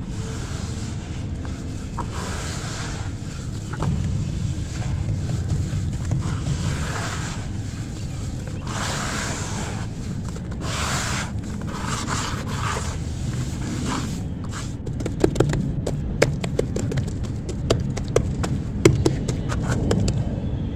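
Hands kneading and squeezing wet sand in a basin: gritty scraping and squishing that swells and fades. In the last third this gives way to a run of sharp wet slaps and pats as the sloppy sand is patted flat.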